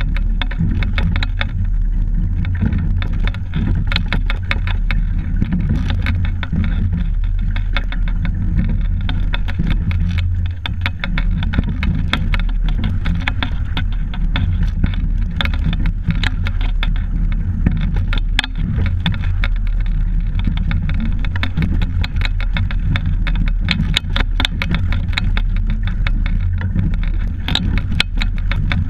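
A double sculling boat under way, heard through a camera fixed to the boat: a loud, steady low rumble of wind and water on the microphone, with frequent sharp clicks and knocks from the boat and its oars.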